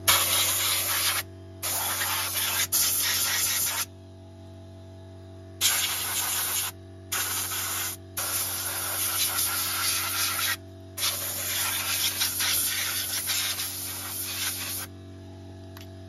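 Compressed-air blow gun blasting at a car's front brake disc and caliper in about seven hissing bursts of one to four seconds each, with short pauses between. A steady low hum runs underneath.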